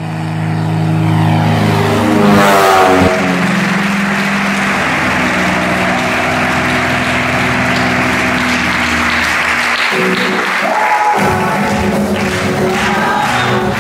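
A small propeller plane's engine drone for the first few seconds, rising in pitch as the plane comes in low, then music.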